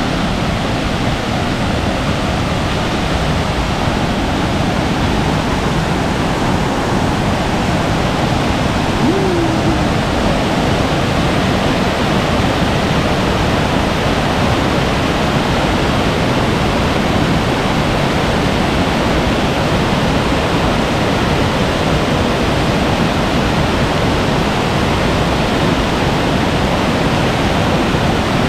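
Steady loud rush of water from a rain-swollen mountain valley stream, with heavy rain.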